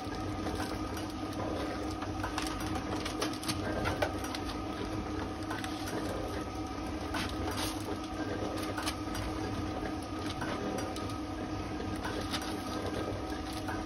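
Sheets of paper being handled and rustled, with scattered light clicks, over a steady hum in the workshop.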